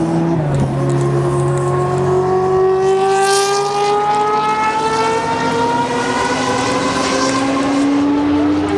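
Race car engines on the circuit, several at once, their pitch climbing slowly as the cars accelerate, with one car passing closer and louder about three seconds in.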